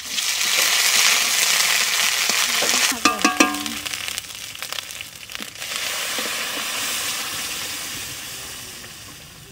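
Ginger paste sizzling loudly in hot mustard oil with bay leaf, dried chilli and cumin in a kadai, with a few sharp clanks of the metal spatula against the pan about three seconds in. Then cooked moong dal is poured into the hot tempering, setting off a second long sizzling hiss that fades toward the end.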